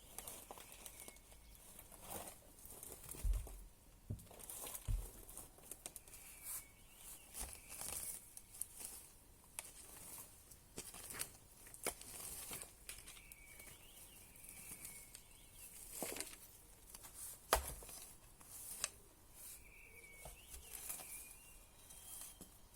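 Campfire crackling: irregular small pops and crackles of burning wood, with a few soft thumps.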